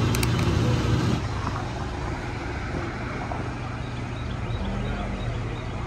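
A steady low mechanical hum during diesel fuelling, a little louder for about the first second, with traffic noise from the road behind it.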